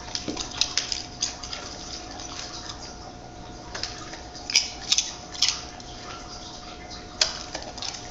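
A dog snapping up and crunching chips: clusters of sharp, crisp crackles, around a second in, again a little after the catch about four to five seconds in, and once more near the end.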